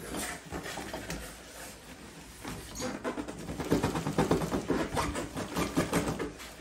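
Cardboard carton being worked up off a styrofoam-packed portable ice maker: a rapid run of rubbing and scraping of cardboard on packing, loudest over the second half.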